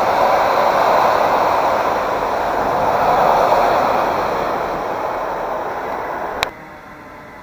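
Freight train of tank wagons rolling past on the rails, a steady rushing noise of wheels on track that slowly fades as the end of the train goes by. Just after six seconds in there is a sharp click and the sound drops suddenly to a quieter, steady background rush.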